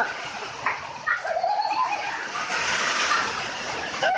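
Rain falling with a steady hiss, with a few short high-pitched voice calls over it in the first half.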